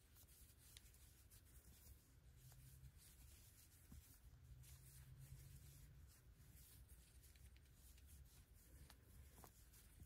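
Near silence: faint rustling of cotton yarn and a crochet hook working stitches, with a few tiny ticks over a low room hum.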